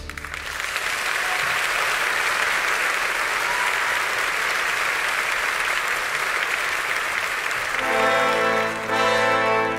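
Theatre audience applauding after the orchestra finishes a section. The orchestra starts playing again about eight seconds in, over the last of the applause.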